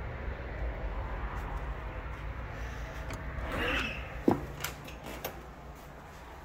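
Low steady outdoor rumble, then a wooden front door is swung open with a brief scraping sweep and a sharp latch click about four seconds in. After that the sound turns quieter, as of a room, with a few light clicks.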